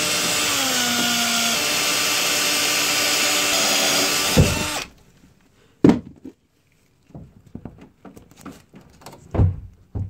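Power drill driving a step bit through the plastic wall of an RV fresh water tank: a steady motor whine that drops a little in pitch as the bit cuts, stopping about five seconds in. A few short knocks follow.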